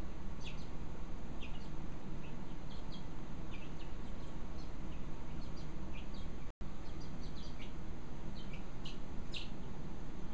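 Young chickens peeping: many short, high chirps, scattered irregularly, over a steady low background noise. The sound cuts out completely for an instant about six and a half seconds in.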